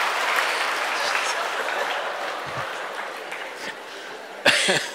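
Audience applause fading away over the first few seconds, then a short, loud burst of laughter near the end.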